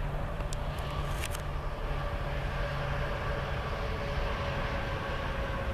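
Freight train cars rolling away along the track: a steady low rumble with a faint steady whine over it, and a few sharp clicks in the first second and a half.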